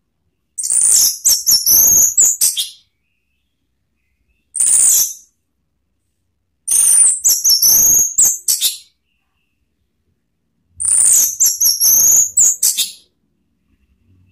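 Orange-headed thrush (anis merah) singing loudly: four phrases of quick, high warbling whistles, the second one short, separated by pauses of a second or two.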